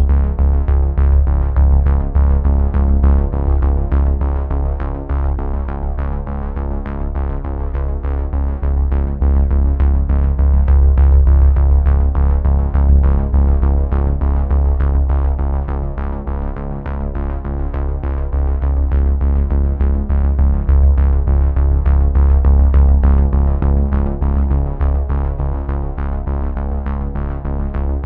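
Background electronic music: synthesizer chords over a heavy steady bass with a regular beat.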